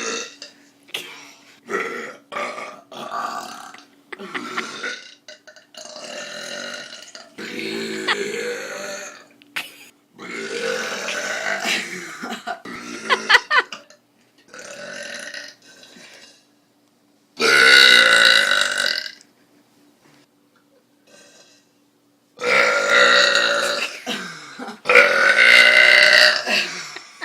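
A person burping deliberately over and over, about ten burps of varying length with short pauses between, several of them long and drawn out. The loudest come in the middle and near the end.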